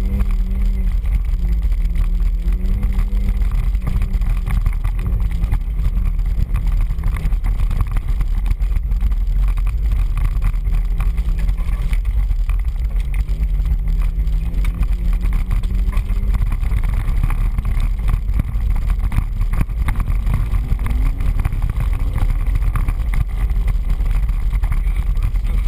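Off-road 4x4 engine revving up and down as the vehicle is driven hard over a rough trail, under a heavy low rumble of buffeting and jolting picked up by the camera on the hood.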